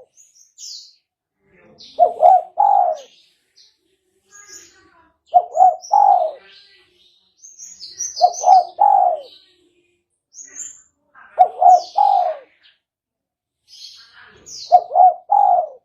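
Spotted dove (tekukur) cooing: five short phrases of two or three hoarse coos each, repeated about every three seconds. Faint high chirps of small birds come in between.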